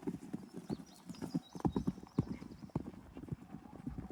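Horse's hooves clip-clopping, an uneven series of hoof strikes.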